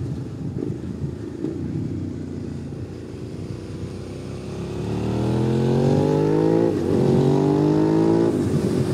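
2005 Suzuki SV650's V-twin engine under way, low and quiet off the throttle for the first few seconds, then pulling hard with its note rising. The pitch drops sharply twice, about two-thirds of the way in and near the end, as it is shifted up a gear.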